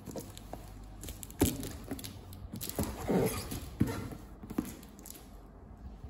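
Cardboard box being handled and turned: a few sharp knocks against the cardboard and a short scraping rustle about three seconds in.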